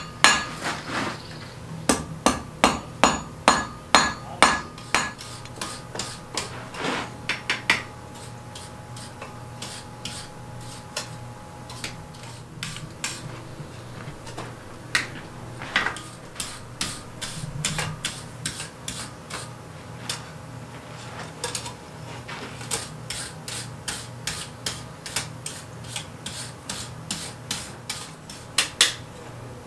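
Hand hammer forging red-hot iron on an anvil, each blow with a metallic ring from the anvil. A quick run of heavy blows, about two a second, fills the first five seconds; after that come scattered single strikes, and near the end a run of lighter, faster blows.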